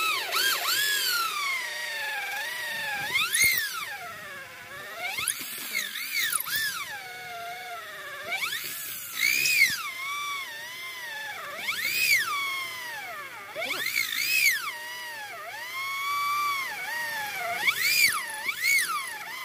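High-pitched whine of an electric power tool's motor. Its pitch repeatedly sags and climbs back over a second or two as the tool bogs under load in the wood and then frees up.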